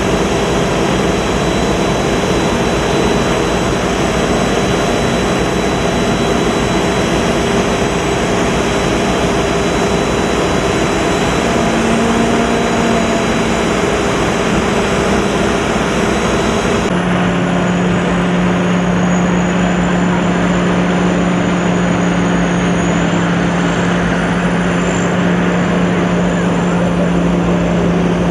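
Sakpattana corn combine harvester running, a loud steady mechanical drone with several constant hum tones. About two-thirds of the way through, the sound changes abruptly to a deeper, steadier hum.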